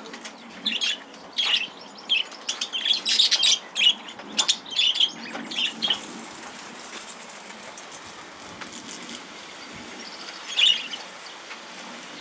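Budgerigars chirping and fluttering their wings in a crowded cage. About halfway through, a steady high hiss of a light spray from a hose pipe starts and carries on.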